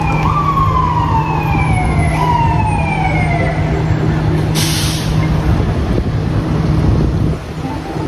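Police car siren wailing in slow falling sweeps over a steady engine hum. The siren fades out about halfway through and the engine noise goes on until shortly before the end.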